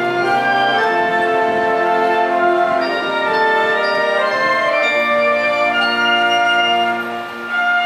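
High school wind band playing: brass and woodwinds sounding full, held chords that change every second or so.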